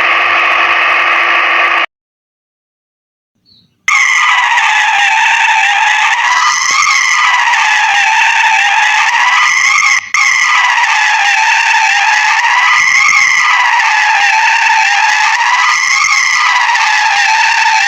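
Cartoon race-car sound effect: a continuous high squealing tone, like a tyre skid, rising and falling in pitch about every three seconds. It follows a steady buzzing sound that cuts off about two seconds in, and then two seconds of silence.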